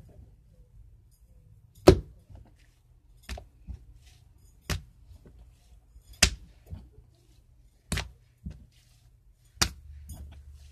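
Homemade slime being pressed, slapped and pulled by hand on a wooden floor: a sharp smack or pop every second or two, some much louder than others.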